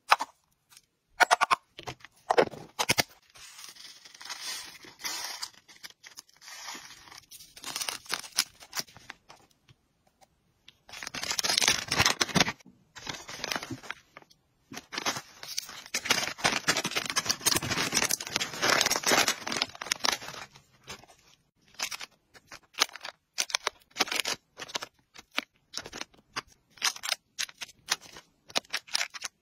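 Plastic bags crinkling and dry hamster food rustling as the mix is scooped and packed, with a long stretch of loud dense crinkling in the middle. Near the end comes a quick run of sharp crinkling clicks from small plastic packets being handled.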